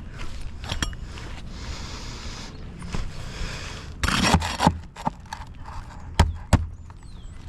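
Scraping and rubbing strokes on a hard surface, followed by several sharp knocks a little after four seconds in and two more about six seconds in.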